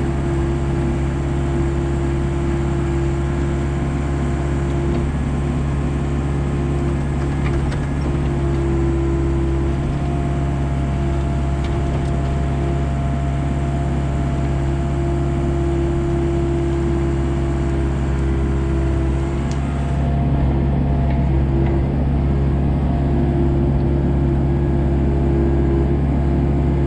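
Komatsu excavator's diesel engine running steadily while digging, with a fainter higher tone that comes in for several seconds mid-way.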